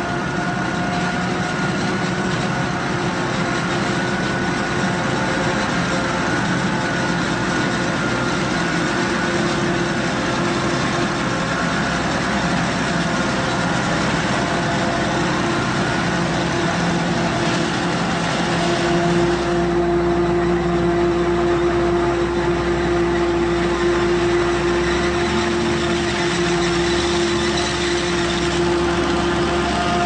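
Diesel engine of heavy farm machinery running steadily, its note shifting about two-thirds of the way through and rising near the end.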